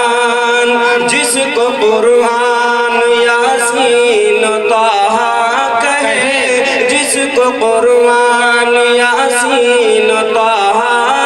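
A man singing a naat, an Urdu devotional poem in praise of the Prophet, into a microphone with no instruments. He draws out long held notes that waver and glide in ornaments, with the melody bending most around the middle and near the end.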